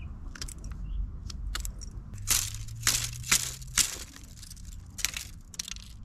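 Knife blade cutting and shaving a thin wooden stick: a series of short, sharp scraping strokes, the loudest bunched together in the middle, with lighter ones before and after.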